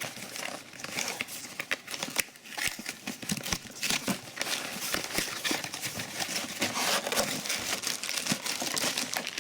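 Plastic packaging crinkling and rustling as accessories are unwrapped by hand, a steady run of small crackles and rustles.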